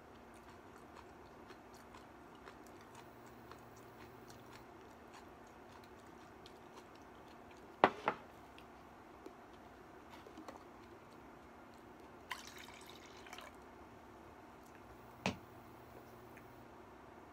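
Faint sounds of someone eating at a low table. A ceramic bowl clacks twice on the tabletop about eight seconds in. A short rustle follows a few seconds later, then a single sharp knock of tableware near the end, over a low steady hum and small clicks.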